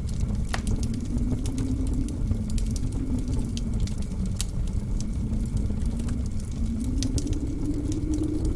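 Blizzard wind howling outside with a low moan that slowly falls and rises in pitch over a steady rumble, while a wood fire in a fireplace crackles with scattered sharp pops.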